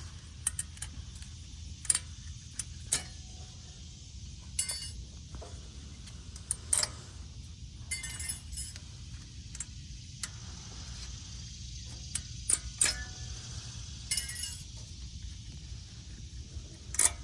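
Old metal brake pad clips being pried off a caliper bracket: scattered sharp metallic clicks and short jingling clinks, over a steady low rumble.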